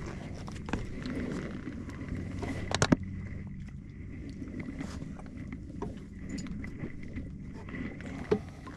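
Knocks and clunks of feet and gear on a small fiberglass boat's bow as a person climbs back aboard, with a loud knock about three seconds in and another near the end. A steady low hum runs underneath.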